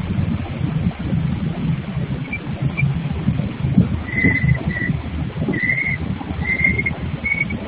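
Uneven low rumble of granite workshop machinery noise, with a few short high bird chirps over it from about four seconds in.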